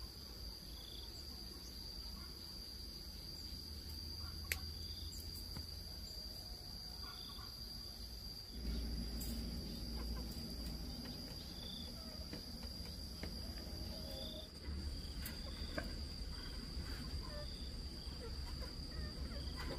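A steady, high-pitched insect drone with short high chirps every second or so and chickens clucking now and then. A few sharp knocks and a low rumble come in about halfway.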